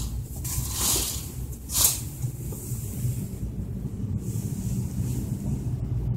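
Sheer window curtain rustling as it is brushed aside, in two short swishes about one and two seconds in, over a steady low hum.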